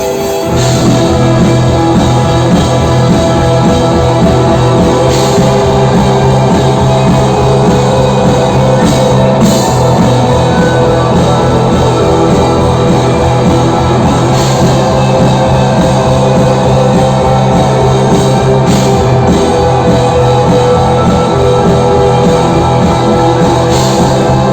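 Rock band playing live, with drum kit and guitar in a loud, steady groove; the full band comes in about half a second in, with cymbal crashes every few seconds.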